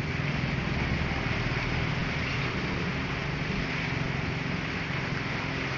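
Steady low rumble with a hiss over it, unchanging throughout.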